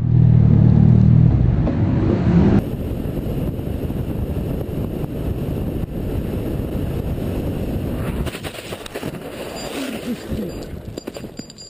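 Motorcycle helmet-camera sound: a loud, steady engine hum for the first couple of seconds, then, after a cut, steady wind and road noise.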